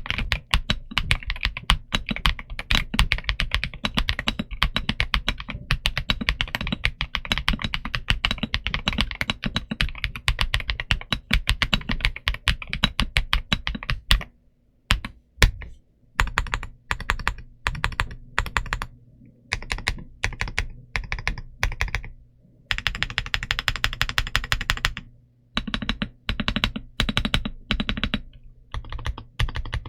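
Typing on a Redragon K709 Pro 65% mechanical keyboard: fast, continuous keystrokes for about the first half, then slower, separate key presses and short runs of strokes.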